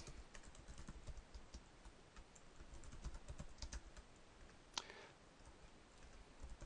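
Faint computer keyboard typing: scattered, irregular keystroke clicks, with one sharper key press about five seconds in.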